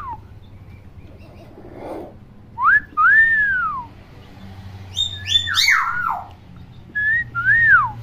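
Hill myna whistling: twice a two-note whistle, a short rising note followed by a longer one that rises and falls. Between them, about five seconds in, comes a burst of harsher falling notes.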